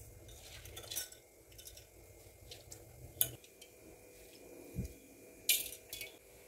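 Rice being dropped and spread by hand in a stone aattukallu grinder, with scattered light taps and a few sharp clinks, the loudest about three seconds in and again near the end, and a low thump just before it.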